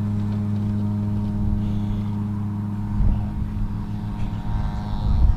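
An engine running at a steady pitch, with low rumbling bumps about three seconds in and again just before the end.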